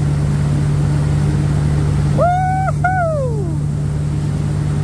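Boat engine running steadily under way, with the rush of churning wake water. About two seconds in, a person whoops twice: one held note, then one sliding down.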